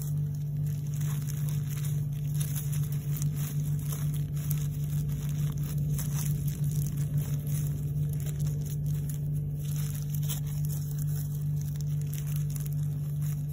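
A steady low hum at one constant pitch, with faint irregular crinkling and crackling over it.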